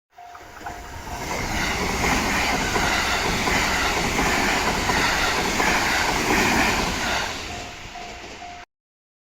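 A train passing a level crossing at speed, its wheel and rail noise building about a second in, holding loud, then fading. The crossing's warning bell rings in a quick repeating tone at the start and again near the end, and the sound cuts off suddenly shortly before the end.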